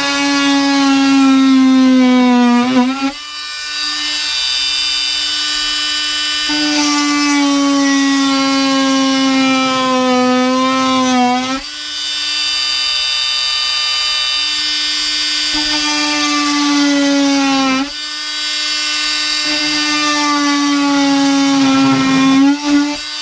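Oscillating multi-tool cutting into a wooden wall panel: a loud high buzz whose pitch sags each time the blade bites into the wood and rises back when it is eased off, four cutting strokes in all.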